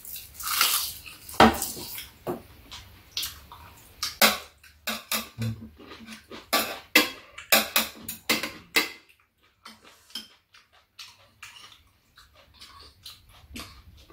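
Metal spoons and chopsticks clinking and scraping against a frying pan, bowls and a steel tray during a meal. A quick run of sharp clinks for about nine seconds, then only a few faint ones.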